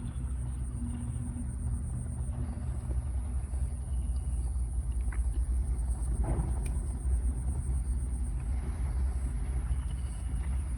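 An engine running steadily with a low rumble, with a faint steady high whine above it.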